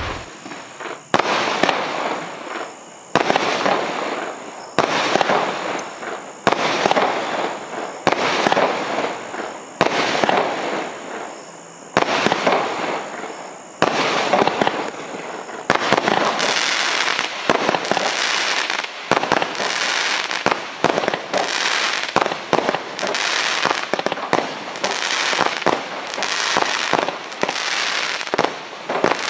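Lesli 'Rock 'n Roller' consumer firework cake firing shot after shot, each a sharp bang followed by a longer rush of noise. The shots come roughly once a second for about the first fifteen seconds, then faster and denser toward the end.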